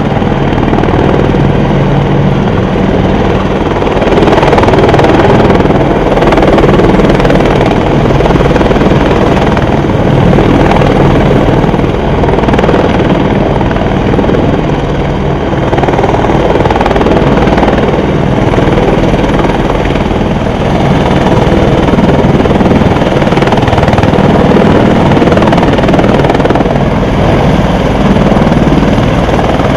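Apache attack helicopters hovering low nearby: loud, continuous rotor and engine noise that swells and eases every few seconds.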